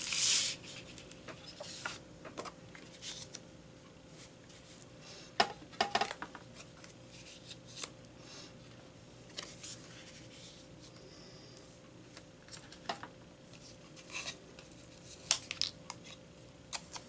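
Paper and cardstock being handled and pressed down on a cutting mat: scattered rustles, slides and light taps, with a few sharper clicks.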